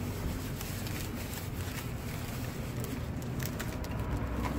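Faint scattered clicks and crackles of someone eating fries over a steady low outdoor rumble.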